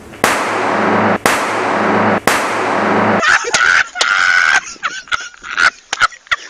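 Three harsh bursts of loud noise, about a second each and back to back, then a man laughing hard in high-pitched, broken bursts, with a dull, low-quality sound.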